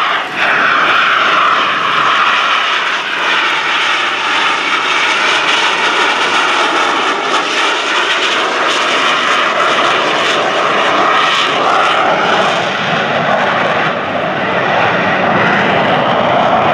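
Aermacchi MB-339 jet trainer with its single Rolls-Royce Viper turbojet flying low aerobatics, a steady loud jet noise. Near the end the sound shifts lower in pitch.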